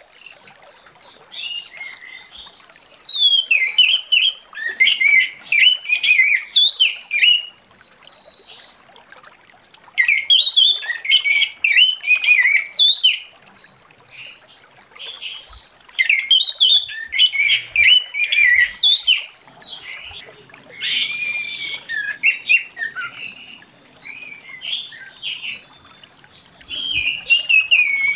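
Orange-headed thrush in full song: a long run of rapid, varied whistled and chattering phrases with a few short breaks, and one harsh, scratchy note about three-quarters of the way in.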